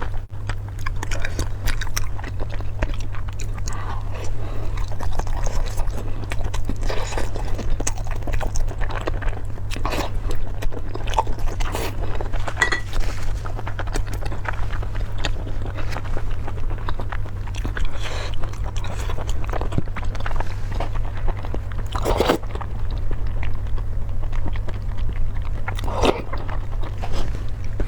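Close-miked eating sounds: a person chewing and biting food, with many short crunches and wet mouth clicks. A steady low hum runs underneath.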